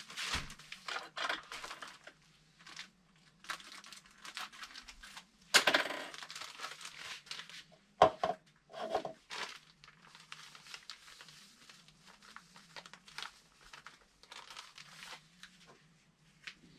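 Plastic bag of groundbait flour crinkling and rustling as it is handled and its contents poured out, with a few louder knocks about eight and nine seconds in. A faint low hum runs underneath.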